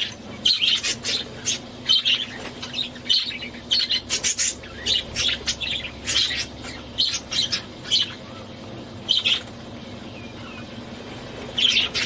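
Budgerigar chirping: short, sharp calls repeated in quick clusters, with brief pauses between them, over a faint steady hum.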